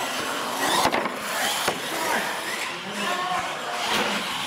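Radio-controlled monster trucks running on a concrete floor, their motors and tyres making a steady noisy whir. There are two sharp knocks, one about a second in and one shortly after, and voices chatter in the background.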